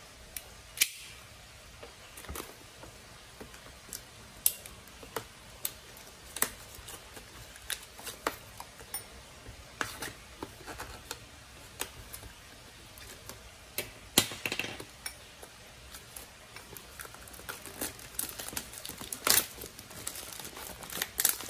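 A cardboard box being handled and cut open with a small knife: scattered taps, scrapes and clicks. Near the end, a clear plastic bag around an alarm clock crinkles as it is handled.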